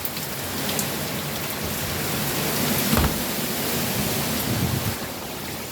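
Hurricane rain and gusting wind in a steady rushing hiss that swells into a stronger gust around the middle, with a sudden low thump about three seconds in.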